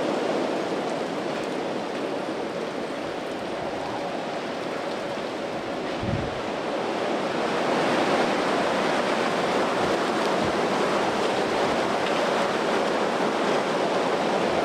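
Strong thunderstorm wind rushing through the trees, a steady noise that grows louder about halfway through, with a brief low thump about six seconds in.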